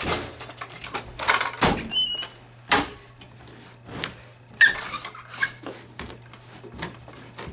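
Carpet power stretcher being worked along the wall, its lever handle pushed down and let up, giving a series of sharp clicks and knocks and a short squeak about two seconds in, as the carpet is stretched onto the tack strip.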